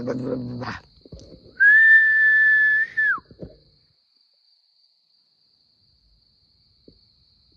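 A person whistling one long, steady, loud note that rises slightly as it starts and falls off at the end, a call whistled into the woods to draw a whistle back. A faint, steady, high insect chirring runs underneath.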